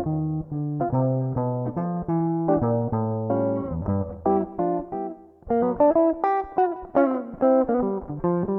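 A 335-style semi-hollow electric guitar being played. Single plucked notes in the low register for about four seconds, a brief pause, then higher notes and chords picked for the rest.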